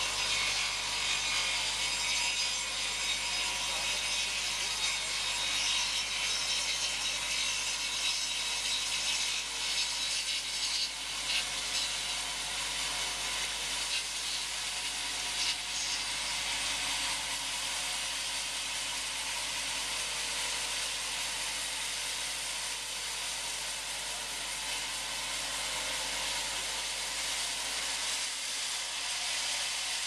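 Bavaria SL 130i mobile bandsaw mill running, its band blade cutting lengthwise through a large log with a steady, even saw noise that eases a little over the second half.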